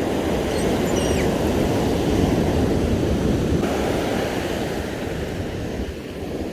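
Ocean surf washing onto a beach: a steady rush of breaking waves that builds for the first few seconds and then eases off.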